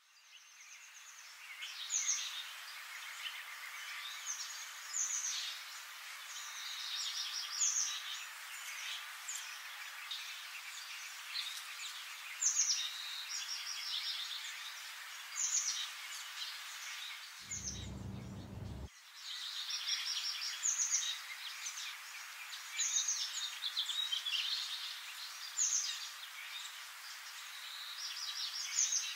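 Birds chirping over a steady hiss, short high calls coming every two or three seconds, with a brief break a little past the middle.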